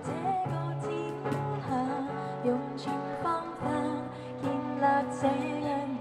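A woman singing a pop ballad into a microphone, accompanied by a strummed acoustic guitar, played live.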